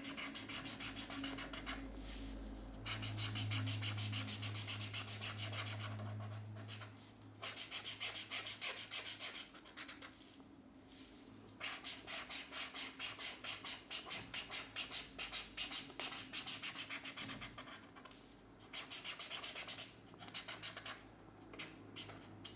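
Felt-tip markers scratching across colouring-book paper in quick back-and-forth strokes as an area is coloured in. The strokes come in long runs with a couple of short pauses.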